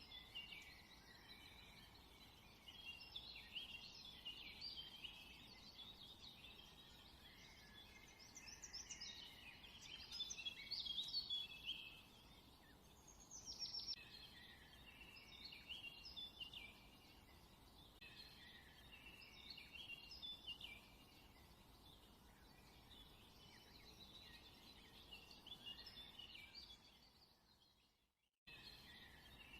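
Faint chorus of many small birds chirping, with short quick calls overlapping throughout and one sliding whistle about halfway through. It fades away shortly before the end and then starts again.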